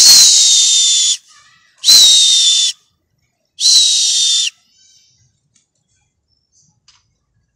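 Three loud blasts on a whistle, each about a second long, a steady shrill tone that sags slightly in pitch at the end of each blast. The blasts come roughly two seconds apart, and the last ends about halfway through.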